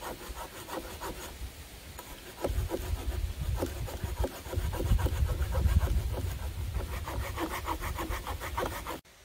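Small hand saw cutting through a dead log with quick, steady back-and-forth rasping strokes that stop abruptly near the end. The saw is a poor one and the cut is slow, hard work.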